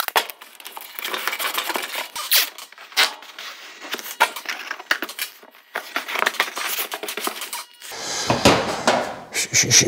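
Masking tape being pulled off the roll and laid down on cardboard: an irregular crackling, peeling noise with scattered sharp clicks, and heavier handling noise near the end.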